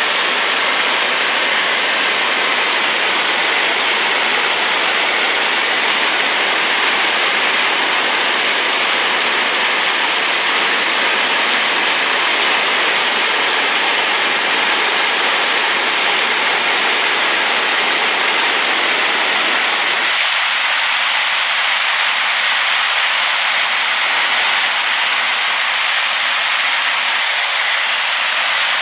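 Waterfall swollen with rain, a loud steady rush of falling water with no breaks. About twenty seconds in, its deepest part drops away abruptly while the rest carries on unchanged.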